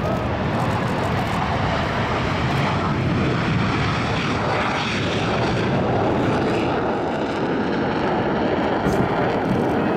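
Two single-engine fighter jets taking off together, their engines at takeoff power giving a steady, loud roar.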